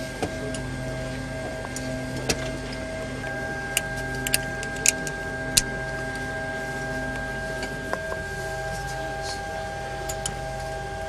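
Sharp metal clicks of a MiG-29 ejection-seat harness being buckled and adjusted by gloved hands, a few single clicks between about two and six seconds in, over a steady hum of several even tones.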